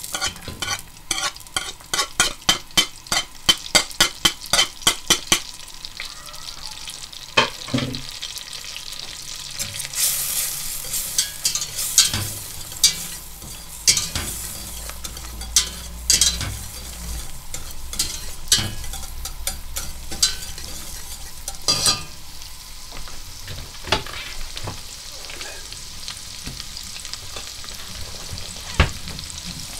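Diced onions sizzling gently in melted butter in a stainless steel pot as they are sweated, while a wire whisk stirs them, its wires clicking against the pot. The clicks come quickly, about four a second, for the first five seconds, then only now and then; the sizzle grows louder about ten seconds in.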